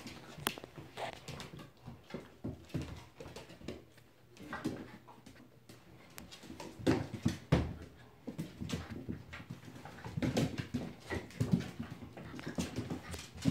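Young puppies playing and scuffling, with irregular knocks and scrabbling and a few short whimpers.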